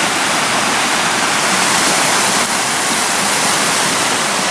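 Rain-swollen creek rushing over rocks and a small waterfall, a steady, loud, rip-roaring flow from a stream that is normally almost dry.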